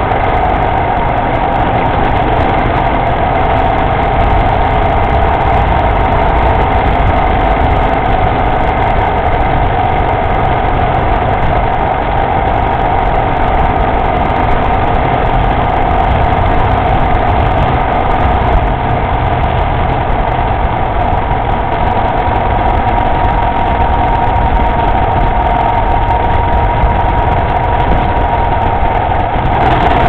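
Motorcycle engine running at a steady cruise while riding, a loud, even drone with no change in pitch, picked up by a camera mounted on the bike.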